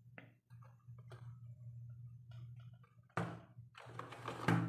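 Hard plastic parts of a toy bus clicking and knocking as they are handled and fitted together, with two louder knocks about three seconds in and near the end, over a low steady hum.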